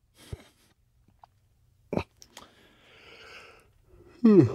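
A man's breathing with a long soft exhale, a single sharp click about two seconds in, and near the end a short, loud wordless vocal sound falling in pitch, like a grunt.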